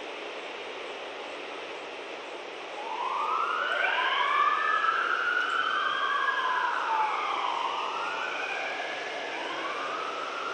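Emergency vehicle sirens wailing: slow overlapping rising-and-falling sweeps that come in about three seconds in, over a steady background hum.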